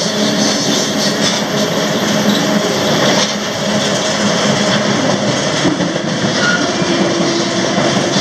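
Freight train rolling along the track: a loud, steady rumble and rattle of wheels and cars on the rails, with a few faint steady ringing tones over it.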